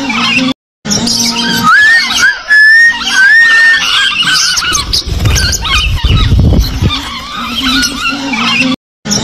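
Flock of lovebirds chattering and chirping, with rising whistled calls and a lower, rougher stretch in the middle. The sound cuts out completely for a moment twice, once just under a second in and once near the end, and the same calls repeat after the second cut.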